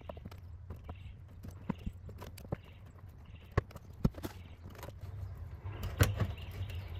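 Utility knife slicing through a plastic fender liner: scattered sharp clicks and snaps, with a rougher stretch of crackling about six seconds in.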